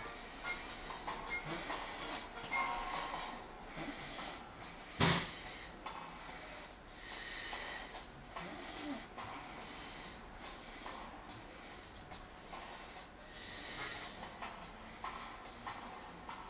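A man snoring deeply in his sleep: a hissy snore about every two seconds, eight in all, the loudest about five seconds in.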